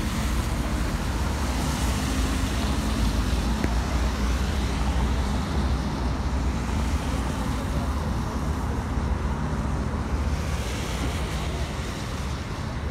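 Wind buffeting the microphone, a steady low rush, over continuous road traffic noise with a faint engine hum.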